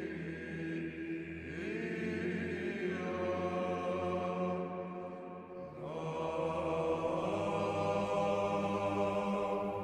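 Orthodox chant: voices holding long notes over a steady low drone, with the melody shifting to new notes a few times.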